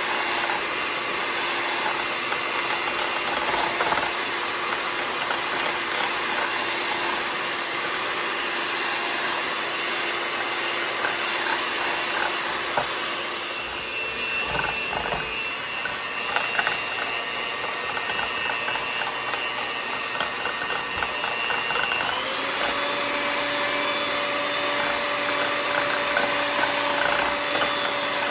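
Electric hand mixer whipping instant coffee, sugar and hot water in a ceramic bowl: a steady motor whine with the beaters churning the liquid. The motor's pitch steps up about three-quarters of the way through.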